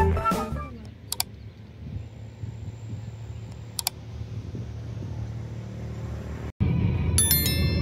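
Subscribe-reminder sound effects: a short mouse-like click about a second in and another near four seconds, over a low steady rumble, then a bright notification-bell jingle near the end over a louder rumble.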